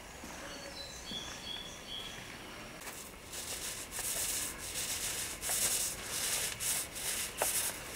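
Timber beam being sanded, a rasping hiss in repeated back-and-forth strokes that starts about three seconds in.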